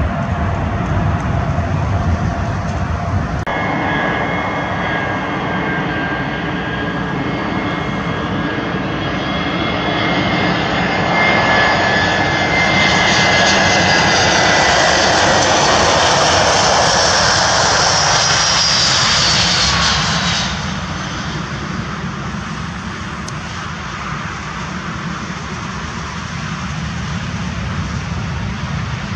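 Airbus A320-family jet airliner on final approach: a steady engine whine with several high tones that grows louder and fuller as it comes past, with a falling whistle near its loudest point. About two-thirds of the way through it drops suddenly to a quieter, lower rumble as the jet rolls along the runway. For the first few seconds a heavier low rumble from an Airbus A380 on the runway is heard, cut off abruptly.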